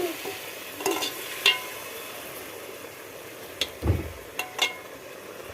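Chicken frying and sizzling in a pan while being stirred, with sharp clinks of a metal spatula against the pan twice in the first two seconds and three more around four seconds in. There is also a dull thump just before four seconds.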